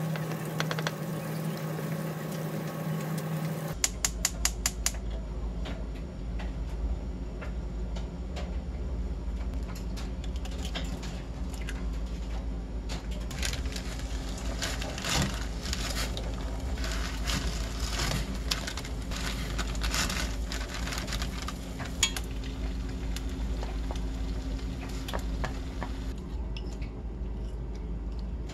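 Cooking at a gas range: a wire whisk stirring sauce in a ceramic bowl, then a quick run of about five clicks, then water boiling in a steel pan and eggs frying, with scattered clinks of utensils over a steady low hum. Near the end the hiss drops away as the whisk scrapes the sauce out of the bowl onto the noodles.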